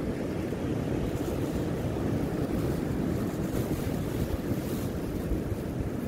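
Ocean surf breaking on a beach, a steady low rumble with a fainter hiss above it, mixed with wind buffeting the microphone.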